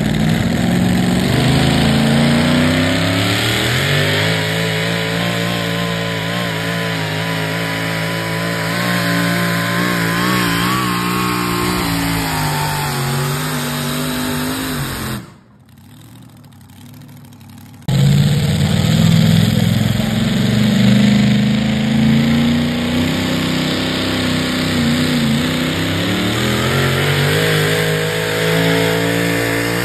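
Super modified 4wd pickup trucks' engines running at full throttle as they pull a weight-transfer sled, the engine note climbing and holding, then sagging as the pull slows. About halfway the sound drops briefly to a much quieter stretch, then another truck's engine pulls, its pitch dipping and climbing again.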